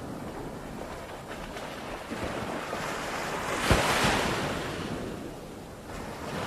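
Ocean surf on a beach: a wave builds and breaks with a rush a little after the middle, then washes out. Another begins to break near the end.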